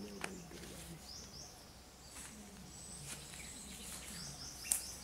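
Quiet outdoor ambience with short, repeated high bird chirps in small runs, a thin high insect tone in the middle, and one sharp click just before the end.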